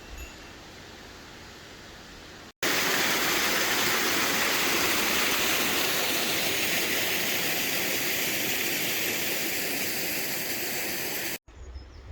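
Rushing water: a loud, steady pour of falling water that starts abruptly a couple of seconds in and cuts off just as abruptly about nine seconds later, with faint outdoor background either side.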